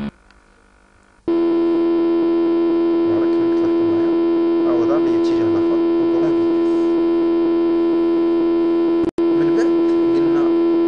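Simulated three-phase motor hum from circuit-simulation software. It goes almost silent for about a second while the timer holds the motor stopped, then a steady, higher-pitched hum starts as the motor restarts in the opposite direction at high speed. The hum cuts out for a split second about nine seconds in.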